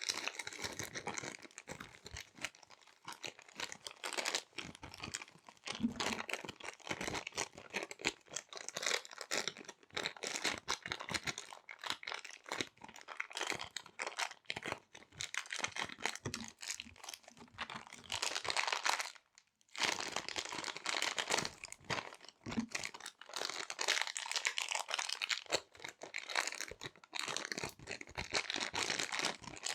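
Small resealable plastic bags being handled and crinkled, a dense irregular crackle with sharp little clicks, broken by a brief pause near the middle.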